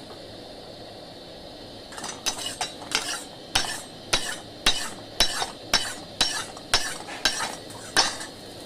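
A metal spoon or spatula stirring and scraping in a kadai, knocking against the pan about twice a second, starting about two seconds in. A steady sizzle of frying runs underneath.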